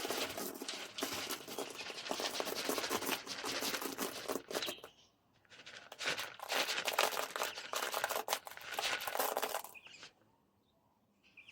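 Chicken layer pellets poured from a rustling feed bag into a feeder, in two long spells with a short pause about five seconds in, stopping about ten seconds in.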